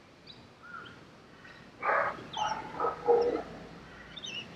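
Three harsh animal calls in quick succession, the last the longest. Faint, short, high chirps of small birds come and go around them.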